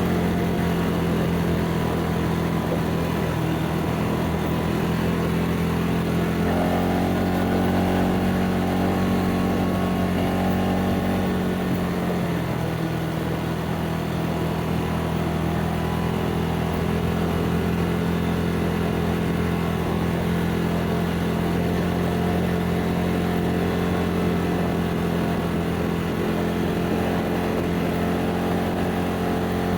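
ATV engine running steadily under way, its pitch stepping up a little about six seconds in and dropping back about twelve seconds in.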